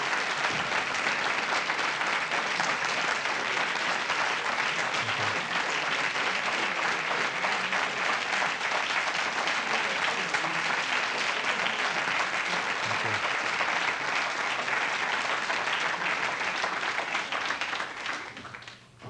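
Audience applauding, a sustained steady round of clapping that dies away near the end.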